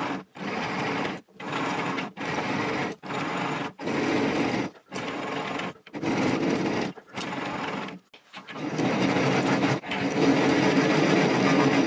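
Mini metal lathe running under power, its spindle driving the lead screw through a change-gear train while it cuts a 16 TPI screw thread, with a steady mechanical whirr. The sound comes in short stretches of about a second, each cut off abruptly, then runs longer over the last few seconds.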